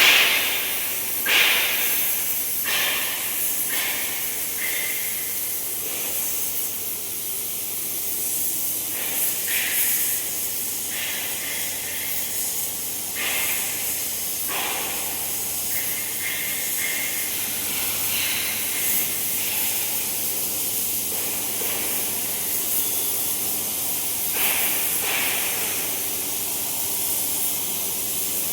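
CNC cutting torch hissing steadily as it cuts through plate, with short louder gushes of hiss at irregular intervals.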